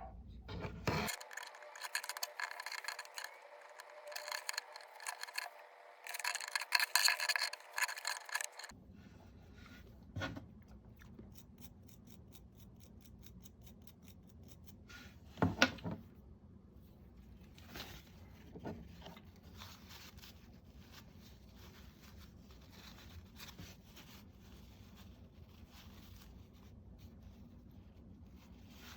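Scraping and rubbing of small hand tools on a computer mouse being repaired, with dense strokes for the first eight seconds or so. This is followed by quieter handling with scattered light clicks and one sharp click about fifteen seconds in.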